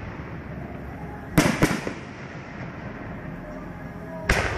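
Aerial firework shells bursting: two bangs in quick succession about a second and a half in, and another near the end.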